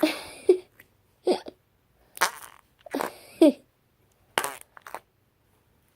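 Flarp noise putty squelched in its container, making a series of about five short fart-like noises, some with a bending pitch.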